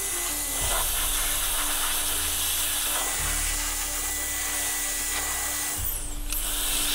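Handheld electric air duster blowing a steady hissing jet of air through a laptop's copper heatsink fins and cooling fan to clear out dust.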